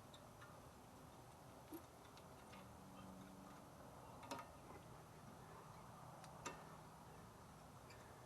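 Near silence with a few faint clicks and taps of a brake pad and its caliper-bracket hardware being handled and fitted, the clearest about four seconds in and another about six seconds in.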